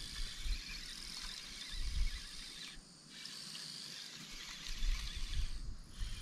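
A steady high-pitched chorus of insects chirring, which breaks off briefly twice. A few low rumbles on the microphone come through underneath.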